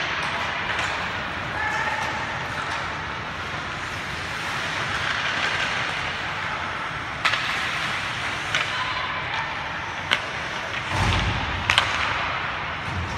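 Ice hockey play on an indoor rink: a steady hiss of skates on the ice, with a few sharp clacks of sticks and puck in the second half and a low thud around two thirds of the way through.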